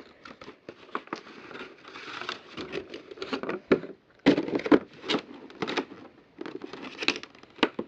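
Packaging being opened and handled by hand: crinkling and rustling with a run of small clicks and knocks, louder about halfway through and again near the end.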